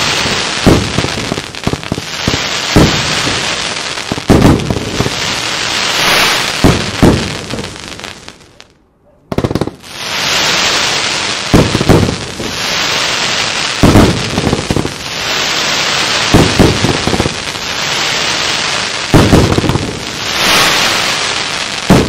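Red Wire Fat Tail Spyder 100-shot compound firework cake firing in rapid succession: repeated shots of thick-tailed shells and loud spider bursts over a continuous hissing crackle. The firing almost stops for under a second about nine seconds in, then resumes.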